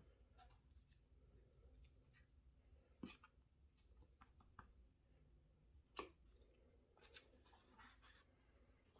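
Near silence with faint handling sounds from earphones and their packaging: a few soft clicks and light scratching, the sharpest clicks about three and six seconds in.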